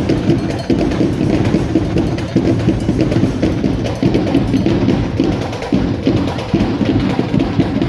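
Marching drumline playing a fast, steady cadence on drums.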